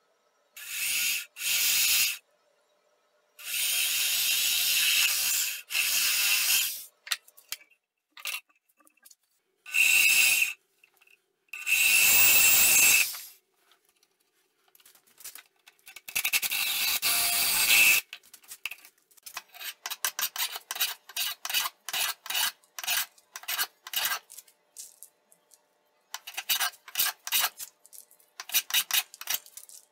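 Cordless drill with a long extended bit boring into a wooden chair leg in several short bursts of one to three seconds. After that, a hand plane takes quick, repeated shaving strokes along a leg, about two strokes a second.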